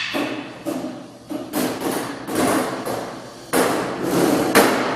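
A series of loud bangs and thuds, about one a second, each sudden and ringing on in a large echoing room.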